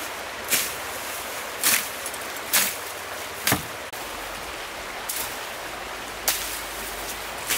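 A shallow stream running with a steady rush, over which come about six short, sharp snaps and rustles of woody brush and stems being broken and pulled by hand.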